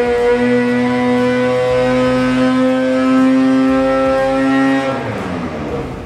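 Arctic Cat Catalyst 600 two-stroke twin snowmobile engine held at high revs under load on a dyno, its pitch creeping slowly upward during the pull. About five seconds in the throttle is closed and the revs fall away quickly.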